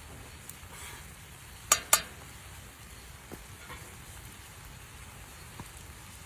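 Shredded chicken in water sizzling in a cast iron pan over a campfire as the water cooks off. Two sharp clicks close together about two seconds in, with a few fainter ticks later.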